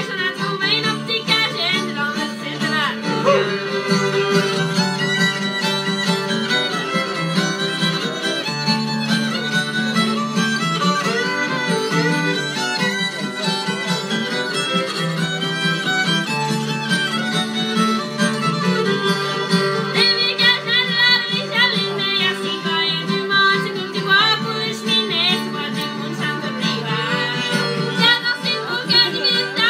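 Two fiddles and an acoustic guitar playing a Cajun tune, the fiddle notes wavering and sliding in places.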